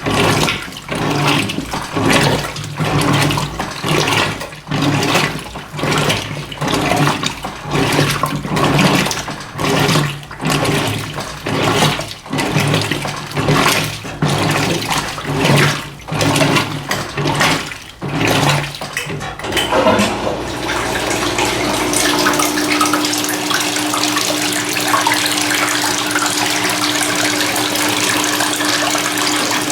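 Electrolux LF90 top-loading washing machine agitating a load of rugs at low water level, water sloshing about once a second as the agitator swings back and forth over the motor's hum. About twenty seconds in the agitation stops and a steady rush of water with a steady hum takes over.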